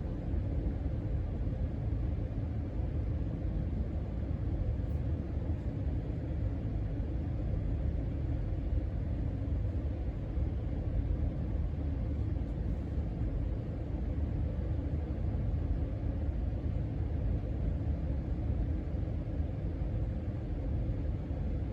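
Casablanca Panama 5 ceiling fan coasting down after being switched off from full speed, its cane blades moving air with a steady low rumble and a faint steady hum.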